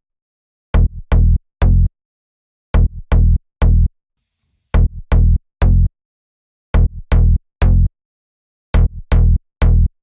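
Slap house mid bass synth patch in Serum, an FM wavetable sound, playing a looped pattern: a short note then two longer punchy notes, the group repeating every two seconds. Each note starts with a bright attack.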